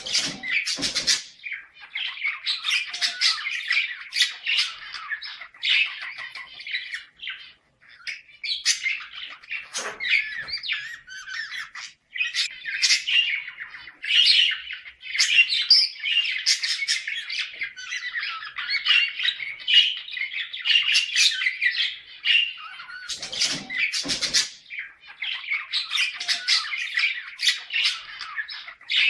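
Budgerigars chattering without a break in a fast warble of chirps and squawks, with a few sharper, louder calls. This is breeding-condition chatter of the kind played to pet budgies to get them ready to mate.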